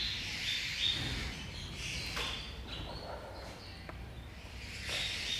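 Marker pen squeaking on a whiteboard as numbers are written: a string of short, high squeaks that come and go in irregular strokes, several near the start, a few in the middle and more near the end.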